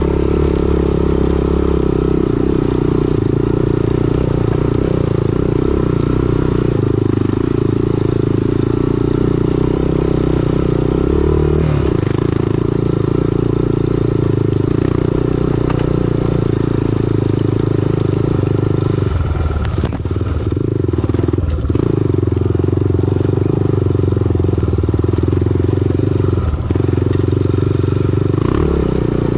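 2008 Honda TRX400EX ATV's single-cylinder four-stroke engine running steadily at low trail speed. The engine note dips briefly a few times about two-thirds of the way in and once more near the end.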